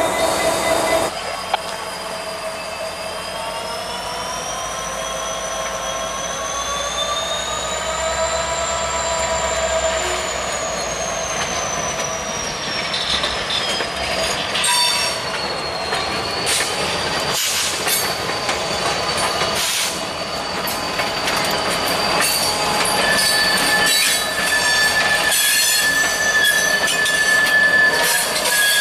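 Wheels of a slow-rolling Norfolk Southern locomotive and boxcar squealing against the rail, the high squeal gliding up and then down in pitch. From about halfway through come repeated clicks of wheels over rail joints, and a steady high squeal begins near the end.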